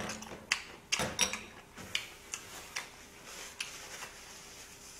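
Pork belly frying in a pan, fat spitting in irregular sharp pops and crackles, a few a second, with a louder cluster about a second in.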